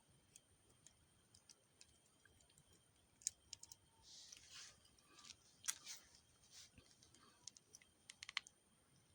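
Near-quiet room with scattered small clicks and a brief rustle from wires and connectors being handled, ending in a quick run of clicks just after eight seconds.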